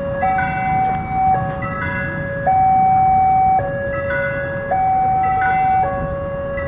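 Railway level-crossing warning alarm sounding while the barriers are down: an electronic two-tone signal switching between a higher and a lower tone about once a second. Road traffic rumbles underneath.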